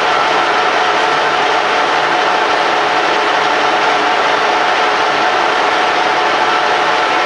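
Colchester Triumph 2000 gear-head lathe running under power, its spindle gearing and feed train making a steady whir with two constant whining tones.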